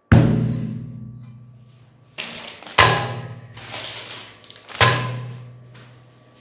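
Intro music made of three heavy booming hits about two seconds apart, each a sudden impact followed by a low ringing tone that dies away.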